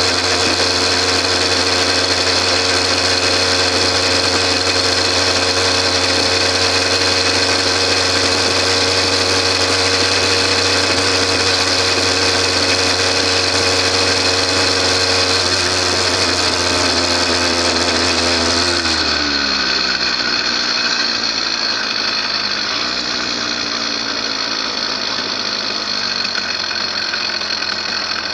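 The bike's motor running steadily at cruising speed. About two-thirds of the way through its pitch glides down and it gets a little quieter as the bike slows for an intersection.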